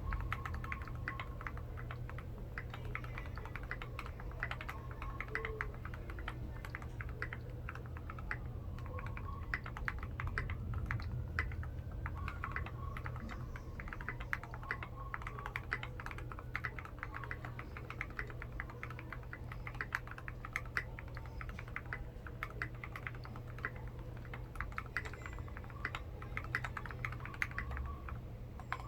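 Continuous fast typing on a custom Alf DC60 mechanical keyboard with lubed Tangerine 60g linear switches, a brass plate and SP SA keycaps: a dense, uneven run of keystroke clacks. A steady low hum sits beneath.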